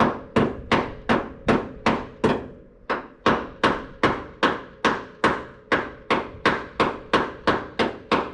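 Steady hammering: sharp blows with a short ringing decay at about three a second, with a brief pause between about two and three seconds in.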